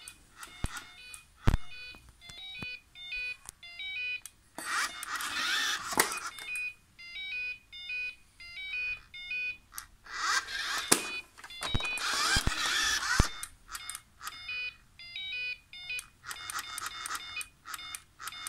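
Ecovacs Deepoo D56 robot vacuum beeping a quick electronic alert tune in repeated phrases while it sits stuck hanging over the edge of a drop. Two stretches of hissy whirring and a few sharp clicks come in between the beeps.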